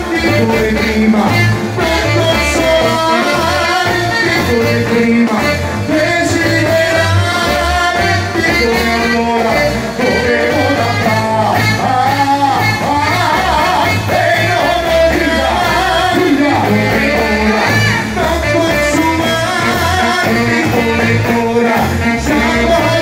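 Live band playing a song: male voices singing into microphones over a drum kit, a steady pulsing beat and saxophone.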